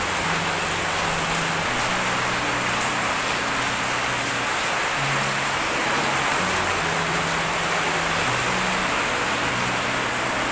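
Steady hiss of fairly heavy rain falling, with soft background music of slow low notes underneath.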